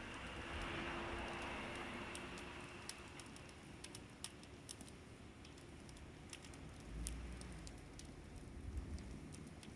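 Wood fire crackling, with scattered sharp pops and snaps over a soft steady background; a broad hiss fades out in the first few seconds.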